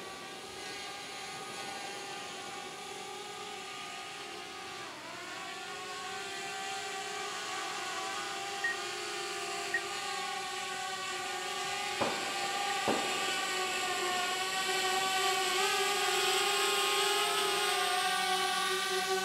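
Multirotor camera drone hovering, its propellers giving a steady pitched hum that dips briefly about five seconds in and grows louder in the second half. Two sharp knocks about twelve and thirteen seconds in.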